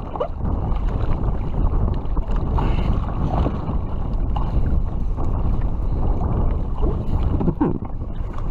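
Wind buffeting the microphone over choppy sea water, with water moving around a kayak, a steady low rumbling noise.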